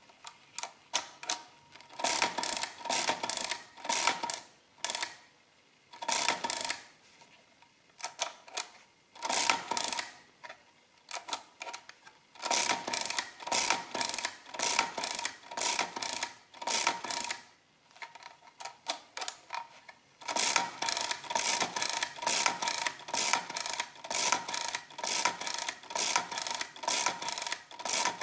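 Multifix E1R mechanical desk calculator, an oscillating-segment machine, clattering through a long division by repeated subtraction. Its operating lever is worked again and again, each stroke a rattle of metal clicks, in six runs with short pauses between them as the carriage is shifted.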